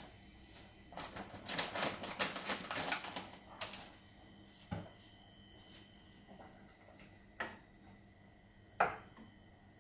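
Crinkling and crackling of a plastic packet of dry noodles being handled, followed by three separate sharp knocks of a utensil against a steel cooking pot, the last the loudest.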